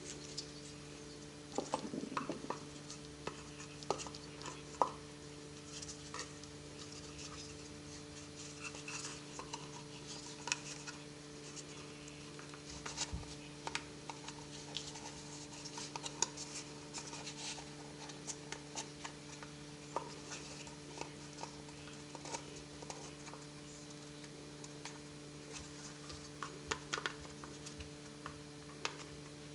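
Scattered light clicks, taps and scratches of hand work on a cordless tool's battery pack, over a steady electrical hum.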